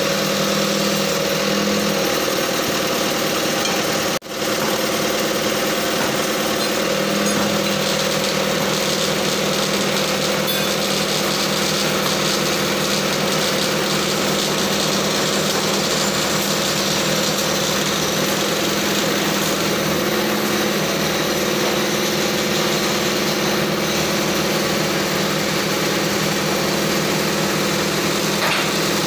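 Crane truck's engine running steadily under the lifting work, with a brief drop-out about four seconds in.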